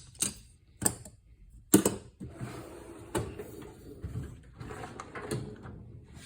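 Metal tool storage being handled: several sharp clacks, the loudest a little under two seconds in, like a drawer being shut, then a rattling, sliding clatter with a few knocks as the next drawer or bin is opened and gone through.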